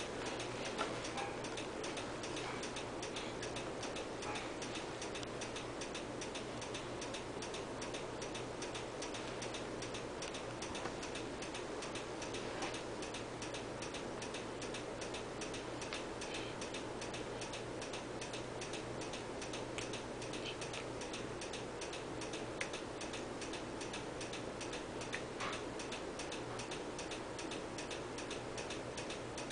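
Steady, even ticking, several ticks a second, over a low steady hum.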